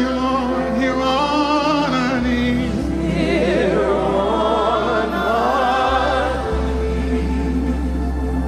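Slow gospel worship music: sustained keyboard chords and a steady bass under a voice singing long notes with vibrato. The singing fades out about six seconds in, leaving the held chords.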